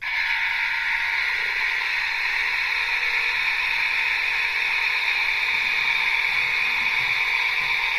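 DX Typhoon transformation belt toy playing its electronic transformation sound effect through its small speaker: a loud, steady, wind-like hiss. It starts suddenly and cuts off just before the end.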